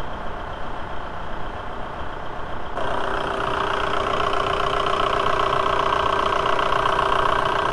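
Volkswagen 1.9 L ALH TDI four-cylinder turbodiesel idling steadily as it warms up after a thermostat replacement. It is muffled at first, then louder and closer from about three seconds in, with a fast, even diesel clatter.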